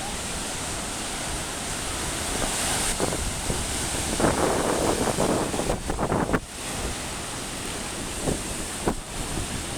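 Ocean surf washing on the shore, with wind noise on the microphone; the surf grows louder for a couple of seconds, starting about four seconds in.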